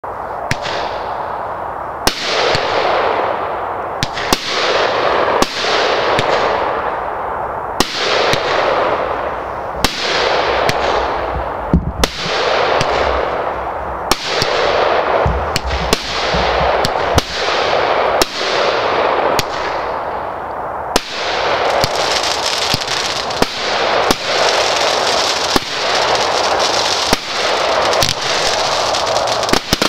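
Magnum 'Rain of Fire' 20-shot firework cake firing one shot after another. Each shot is a sharp report followed by a hiss that fades over a second or two. From about two-thirds of the way through, the shots come faster and the hiss runs on without a break.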